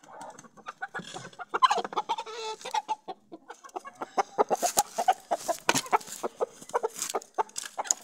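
Aseel chicken clucking and squawking in a rapid run of short calls, mixed with sharp rustles and scuffs that grow busier in the second half.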